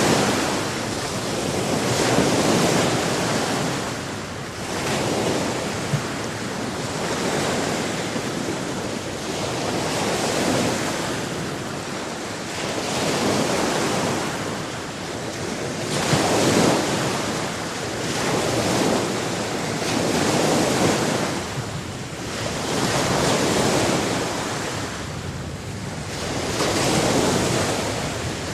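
Sea surf: waves breaking and washing ashore, the rush swelling and fading every two to three seconds.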